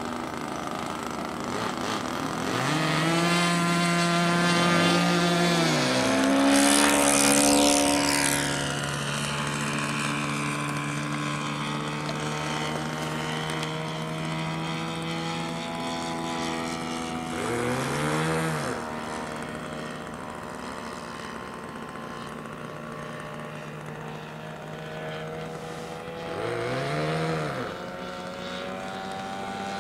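Radio-controlled model airplane's small fuel-burning engine buzzing at high throttle. It rises in pitch and loudness about two to three seconds in and is loudest around six to eight seconds in as the plane takes off and passes close. It then drones steadily in flight, swelling briefly near eighteen and twenty-seven seconds as it passes by again.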